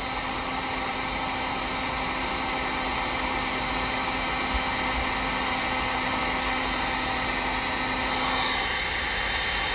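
Electric hot-air blower running steadily on its high setting, blowing on a frozen water pipe to thaw it. A low tone in the steady whoosh drops out near the end.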